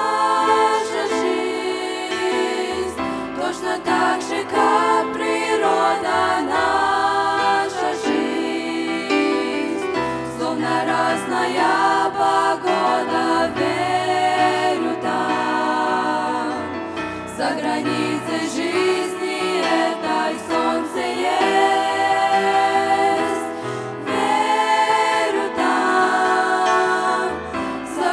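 A group of teenage girls singing a Christian worship song together into handheld microphones, several voices at once.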